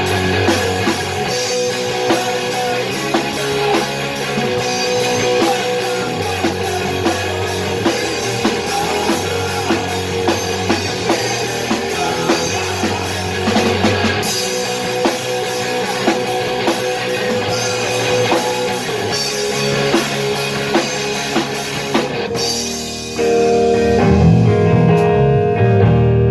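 Rock music: a band with a drum kit and guitars playing at a steady beat. Near the end the cymbals drop away and a louder, lower guitar and bass part takes over.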